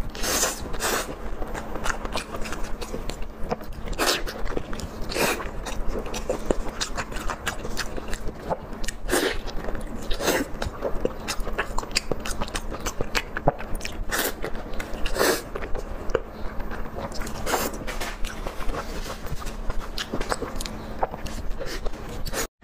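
Close-miked eating of sauce-glazed braised meat: wet biting and chewing with sharp mouth smacks at irregular intervals, some much louder than others.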